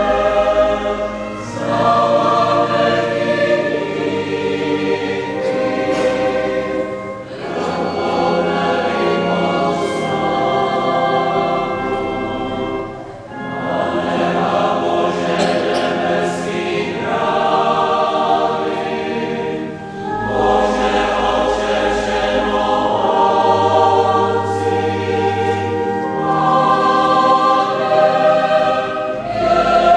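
A choir singing a sacred song at Mass in long held phrases, with short breaks between phrases every several seconds.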